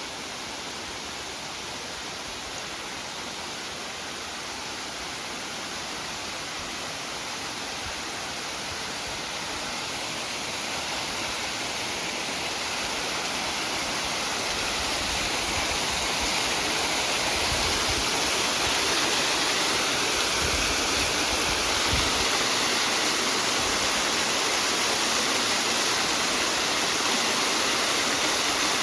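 Rushing water of a mountain stream or waterfall, a steady hiss that grows gradually louder.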